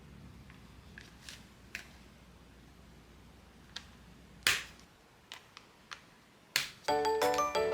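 Scattered sharp clicks and taps of plastic toy parts being handled, about ten in all, two of them louder. Bright glockenspiel-like background music starts about seven seconds in.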